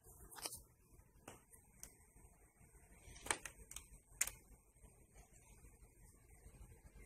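Quiet room tone with a handful of faint clicks and taps from a handheld phone being handled and moved. The two sharpest taps come about three and four seconds in.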